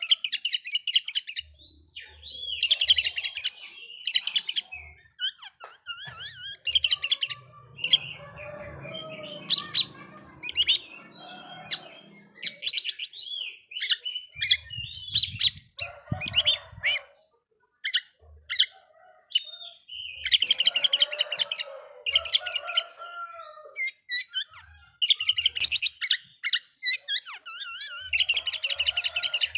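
Oriental magpie-robin (kacer) singing in repeated bursts of fast, scratchy chattering trills and sharp whistled notes, with short pauses between phrases. It is the agitated song used to provoke rival males.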